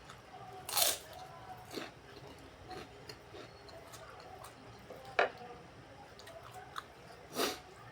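Close-miked mukbang chewing of rice, vegetables in peanut sauce and battered fried tempeh. Soft, wet mouth sounds are broken by a few sharper smacks or bites, about a second in, just past five seconds and near the end.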